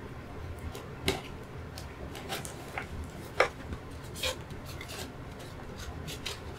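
Hands handling a powered air respirator hood while taking it apart: irregular clicks and knocks of its hard plastic parts over the rustle of its fabric cover, with one sharper knock a little past the middle.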